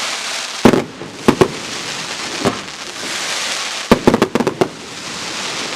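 Mega Willows fireworks going off: sharp bangs at irregular intervals, with a quick cluster of several about four seconds in, over a steady hiss between the shots.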